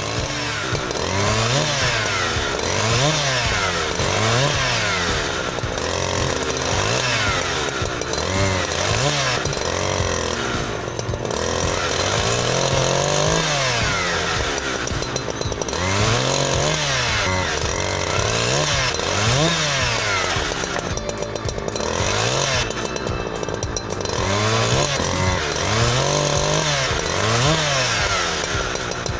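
Husqvarna 365 two-stroke chainsaw running and being revved up and let back down over and over, roughly once every second or so, as it cuts.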